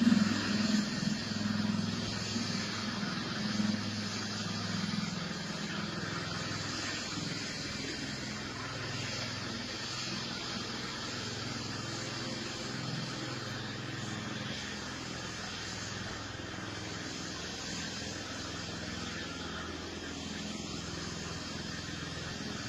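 Steady low engine rumble mixed with outdoor background noise, a little louder and more uneven in the first few seconds, then level.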